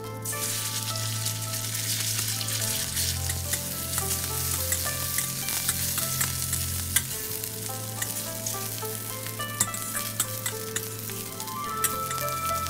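Chicken pieces sizzling in hot oil in a wok as they go in at the start and are stir-fried, with a spatula scraping and clicking against the pan. Background music with a steady bass line plays throughout.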